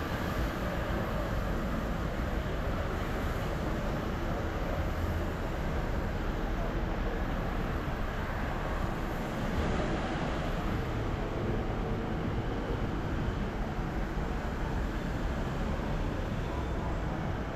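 Busy city street ambience: a steady wash of road traffic.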